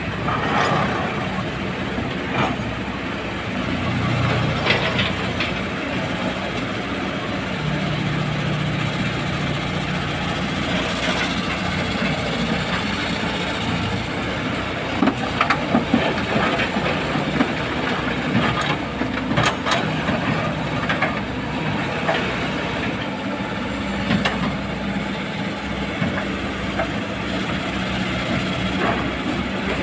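Kobelco hydraulic excavator's diesel engine running steadily under load as it digs and swings, with several sharp clatters of rock and soil dropping into a dump truck's steel bed.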